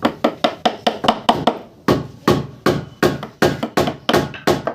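Hammer striking wood in a fast, even series of blows, about three to five a second, with a short pause about one and a half seconds in.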